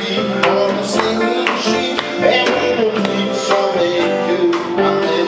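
Live band playing an African dance medley: guitar, keyboard and drum kit over a steady beat of about two strokes a second, with a woman singing at the microphone.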